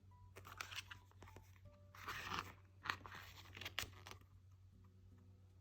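Glossy photobook pages being handled and turned, giving a few crinkly paper rustles and scrapes between about half a second and four seconds in.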